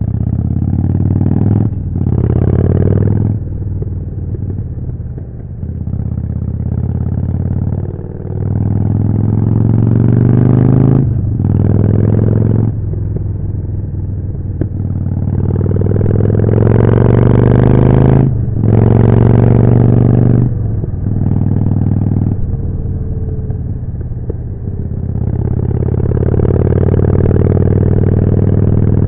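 Harley-Davidson Forty-Eight's V-twin engine through a Jekill & Hyde exhaust, pulling hard with its pitch climbing again and again, each climb broken by a short dip in the sound as the rider shifts up.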